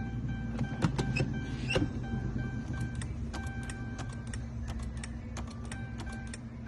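Irregular sharp clicking from a Dodge SRT8 that will not crank or start, with a steady electronic tone that comes and goes behind it; the car produces clicks but no cranking.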